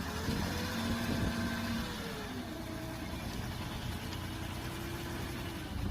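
A vehicle engine sound running steadily, with a hiss and a pitch that rises and falls gently.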